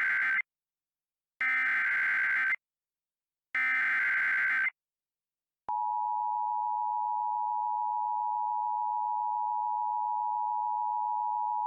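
Emergency Alert System broadcast tones: three SAME data bursts, about a second each with a second's gap between them (the first already under way), then from about six seconds in the steady two-tone EAS attention signal. Together they are the header and attention tone that announce a new alert message.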